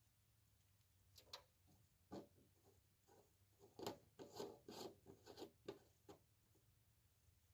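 Faint, irregular scraping and rustling: about a dozen short scrapes spread over a few seconds, loudest a little past the middle.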